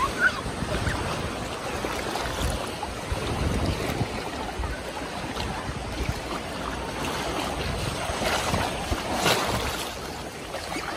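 Shallow sea water lapping and sloshing, with wind buffeting the microphone and a few splashes near the end.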